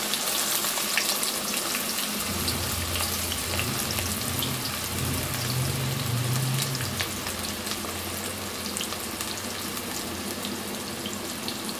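Chopped onions sizzling in hot oil in a steel karahi, a steady hiss with fine crackles that eases slightly toward the end.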